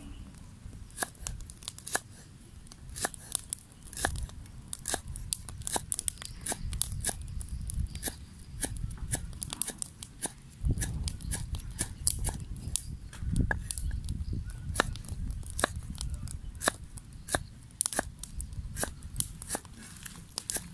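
Kitchen knife chopping garlic on a cutting board: an uneven run of sharp taps, two or three a second, over a low rumble.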